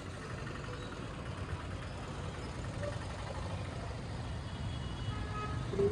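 Steady low rumble of engine and road noise while riding a two-wheeler through city traffic.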